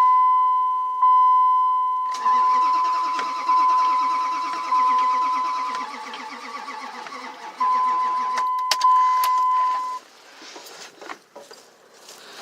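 5.9 Magnum V8 of a 2003 Dodge Ram 1500 cranking on the starter for about six seconds without firing, even on a shot of ether, while a one-pitch warning chime dings repeatedly.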